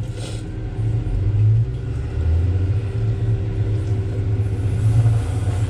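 A heavy-equipment diesel engine idling, a steady low rumble.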